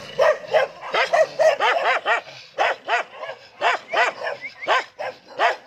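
Several dogs barking in quick repeated barks, about three a second, with a short pause about two and a half seconds in.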